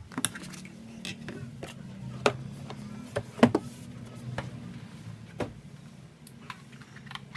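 Scattered clicks and knocks of keyboard parts and accessories being handled during unboxing, over a steady low hum.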